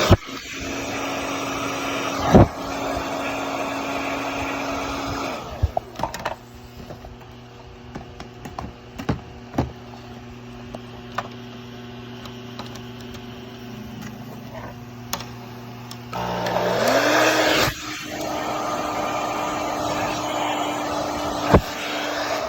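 Hair dryer blowing, run at about 248 volts from a homemade step-up converter. After about five seconds it drops much quieter, with a few clicks. About sixteen seconds in the fan motor spins up again with a rising whine, and the blowing rush returns. A steady electrical hum lies underneath.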